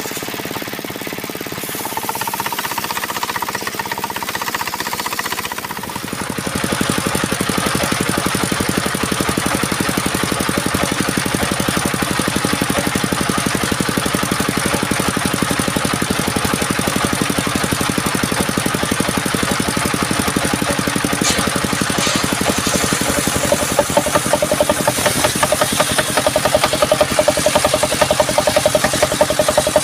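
A small engine running with a rapid, even beat; it grows louder about six seconds in and then runs steadily.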